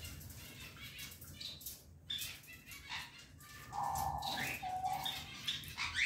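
Sun conures flapping and clambering on a wire-mesh cage, with light scrapes and short calls; the calls get louder about halfway through.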